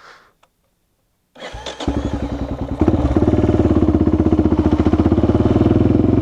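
Motorcycle engine started after near silence: a brief crank about a second and a half in, then it catches and runs with a steady, rapid pulse, stepping up a little louder about a second later and settling into a fast idle.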